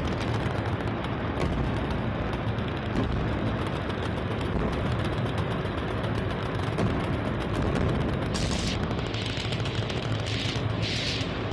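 Machine-gun fire at a gun range: a dense, unbroken rattle of rapid shots with no pauses.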